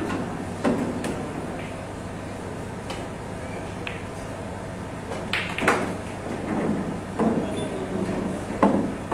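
Pool shot in play: the cue tip strikes the cue ball and billiard balls click sharply together, with several separate clicks and knocks spread through the few seconds, the loudest near the end.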